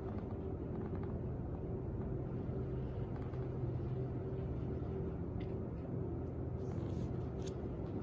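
Steady low machine hum with a few constant low tones, even and unchanging throughout.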